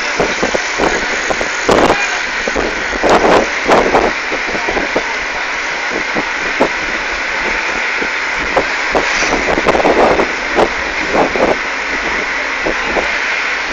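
Road and wind noise from a moving vehicle: a steady rush with frequent short, irregular knocks and rattles.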